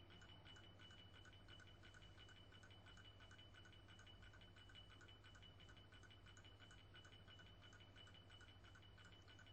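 Near silence: a faint low hum with a thin steady high tone and faint, evenly spaced ticking.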